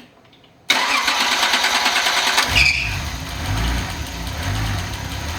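Nissan 280ZX Turbo's L28ET straight-six on an engine test stand being started: the starter cranks it for about two seconds, then the engine catches and runs at a fast idle that slowly settles.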